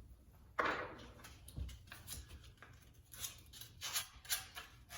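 Handling sounds at the wood stove's door hinge: a sudden scrape just over half a second in, a knock about a second later, then several short, high scraping strokes.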